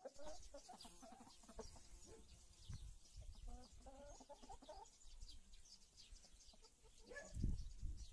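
Faint clucking from a flock of chickens, in short repeated calls, with a low thump about seven seconds in.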